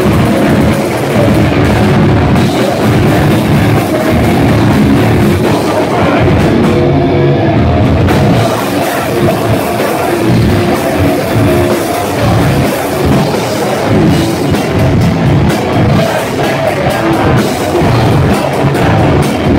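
Heavy metal band playing live at full volume: distorted electric guitars over fast, pounding drums, with no break in the music.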